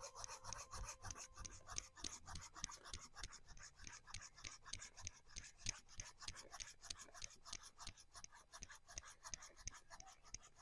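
Small knife blade scraping and carving the woody trunk of an anting putri (Wrightia) bonsai, in a fast, even run of short strokes, several a second.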